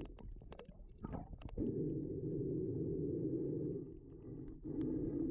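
Muffled underwater sound picked up by a camera in its waterproof housing: a few sharp clicks, then a low, steady rumbling water noise that dips briefly and comes back near the end.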